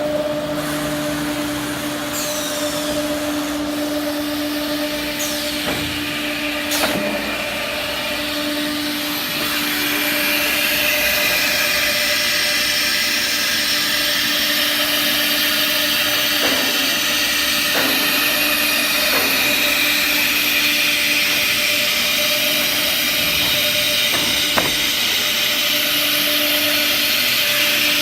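SUDIAO S5 CNC nesting router running: a steady two-tone hum under a hiss that grows louder about ten seconds in, with a few brief falling whistles.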